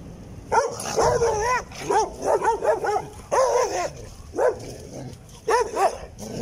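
Dogs barking: a run of quick, high-pitched barks that starts about half a second in and goes on in short bursts with brief pauses.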